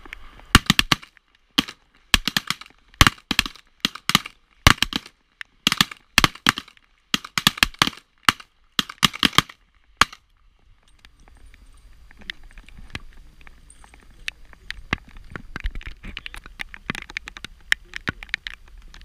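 A rapid series of revolver shots, sharp cracks coming every half second or so for about the first ten seconds. The firing then stops, and footsteps on gravel follow as faint irregular ticks.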